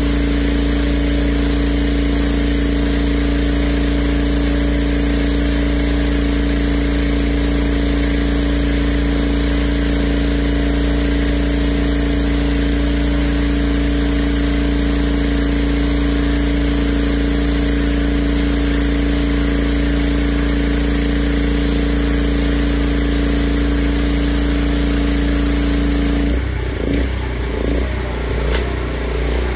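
Pressure washer running steadily, its jet hissing against concrete. About three seconds before the end the spray stops and the machine's sound turns uneven and a little quieter.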